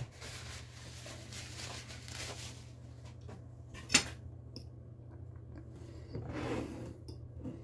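Metal fork clicking once against the plate as it is picked up about four seconds in, then a softer handling sound as a hand takes hold of the plate and the fork goes to the sausage; a low steady hum underneath.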